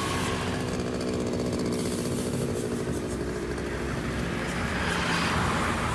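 Motorcycle engine running steadily, swelling slightly about five seconds in.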